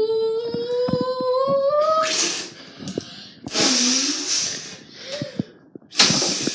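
A child's voice holding a long drawn-out wailing note that slowly rises in pitch and breaks off about two seconds in, followed by several short breathy hissing exhalations.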